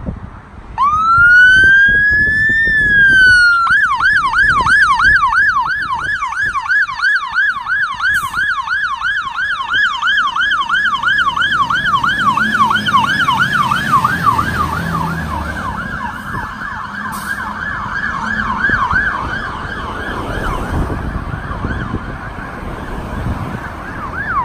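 Fire engine's electronic siren switching on about a second in with one rising and falling wail, then changing to a fast yelp that sweeps up and down about three times a second. The truck's engine rumbles under it as it passes, and the siren fades as it pulls away.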